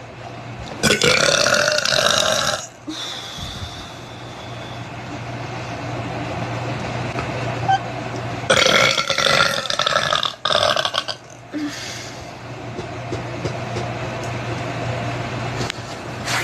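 A person's loud, drawn-out burps, done on purpose: one lasting about two seconds starts about a second in, and another starts around eight and a half seconds in, breaking once. A steady low hum sits underneath.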